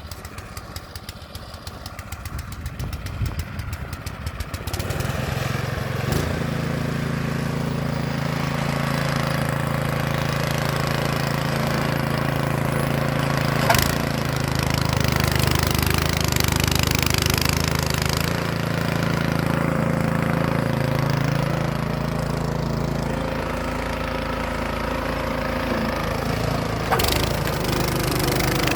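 Gas snow blower engine running, with a fast even ticking at first. About five seconds in it steps up to a louder, steady drone, and a few sharp knocks come through along the way.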